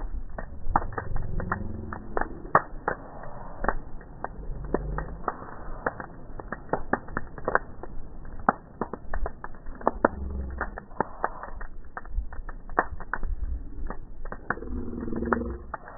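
Bonfire of burning branches crackling, with irregular sharp pops and snaps several times a second over a low rumble.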